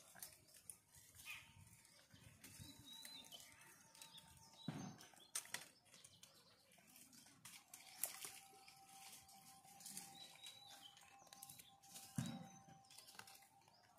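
Near silence, with faint rustles and clicks in dry leaf litter as a gray langur picks food off the ground, and a soft thump about five seconds in and again near the end. A faint thin steady tone sits in the background.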